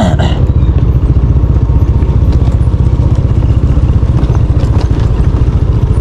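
Motor scooter riding over a rough gravel track: a steady low engine and road rumble with rattling over the stones.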